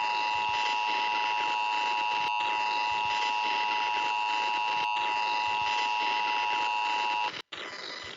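Emergency Alert System attention signal: a steady chord of tones over a hiss, with a few tiny dropouts, cutting off about seven seconds in. A faint hiss follows.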